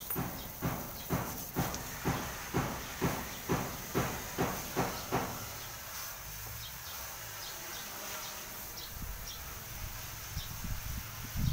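Water from a garden hose spraying and splashing into a cement basin, a steady hiss. For the first five seconds a separate sound pulses about twice a second, then stops.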